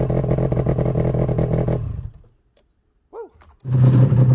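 Yamaha snowmobile engine idling steadily with an even pulse. It cuts off suddenly about two seconds in, leaving near silence broken by one short chirp, and the engine is running again near the end.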